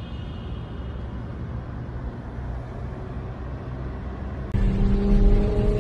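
Low, steady rumble in a road tunnel around a burning car. About four and a half seconds in it cuts abruptly to louder engine and road noise heard from inside a moving car, with a steady engine note that rises slightly.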